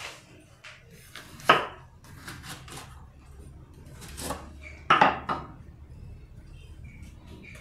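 Kitchen knife knocking on a wooden cutting board while cutting a red onion: a few sharp knocks, one loud one about a second and a half in and a cluster of them around five seconds in.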